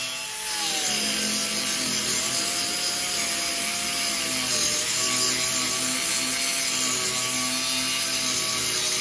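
Small air-powered grinder with an abrasive disc grinding down rivet heads on sheet-metal bodywork. It gives a steady high whine over a harsh grinding hiss, with a slight dip in pitch just after the start.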